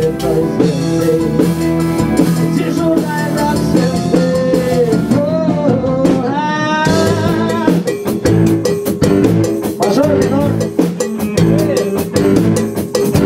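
A rock band rehearsing: a drum kit keeps a steady beat under sustained instrumental chords. A male vocalist sings into a handheld microphone, and the melody slides sharply upward about six seconds in.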